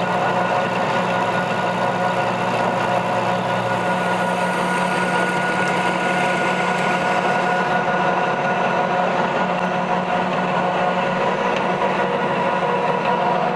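Metal lathe running with a steady gear hum made of several constant tones, while a radius-profile turning tool takes a cut on a spinning hex-bar fitting blank.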